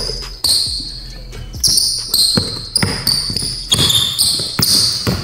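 A basketball being dribbled on an indoor hardwood court, with sneakers squeaking in short, high-pitched chirps from about a second and a half in.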